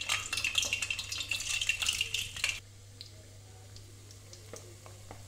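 Boiled eggs sizzling and crackling in hot oil in a pan as they shallow-fry. About two and a half seconds in the sizzle drops abruptly to a much fainter crackle.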